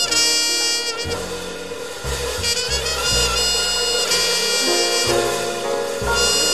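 Small-group jazz recording: a horn plays a melodic line of held and moving notes over double bass and drums.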